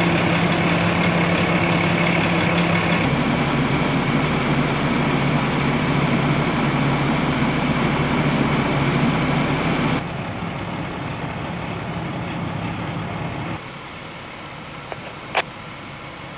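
Diesel engines of parked fire trucks idling with a steady drone, the level stepping down twice in the second half. A single short, sharp click near the end.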